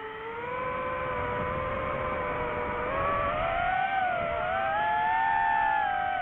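FPV quadcopter motors whining, their pitch rising and falling with the throttle: steady at first, climbing from about halfway in to a peak, then starting to drop near the end.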